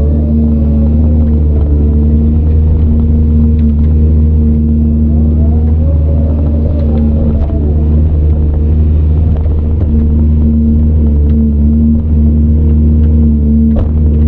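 Caterpillar 395 excavator's C18 diesel engine running steadily under working load, with a higher tone that bends up and down twice as the machine works.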